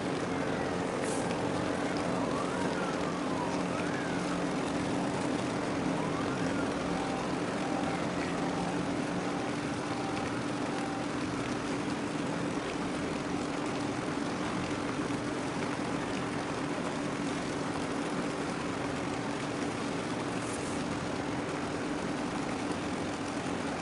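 Steady low machinery hum over an even background rush, from the docked container ship and the terminal around it. Faint wavering siren-like tones rise and fall in the first few seconds, and a faint repeated beep sounds for a few seconds a little before the middle.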